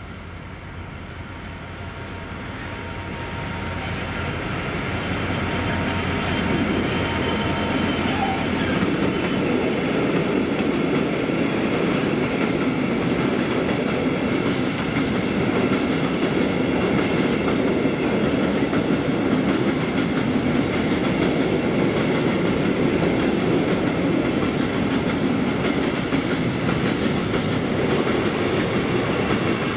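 Freight train hauled by a Class 66 diesel locomotive passing over a level crossing. It grows louder over the first few seconds, then holds a steady rumble of wagon wheels running on the rails.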